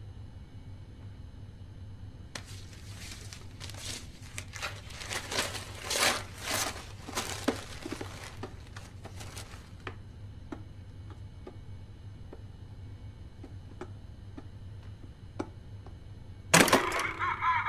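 Tissue paper rustling and crinkling as a gift box is unwrapped, for about seven seconds, then a few faint clicks. Near the end a sudden loud sound cuts in.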